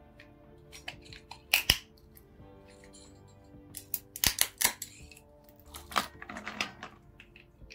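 Background music with a few sharp clicks and knocks from handling in the kitchen: one pair about a second and a half in, a loud cluster a little past the middle, and a short crackly rustle just after it.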